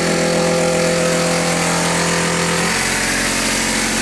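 RV 12-volt water pump running with a steady motor hum; its pitch drops about two-thirds of the way through.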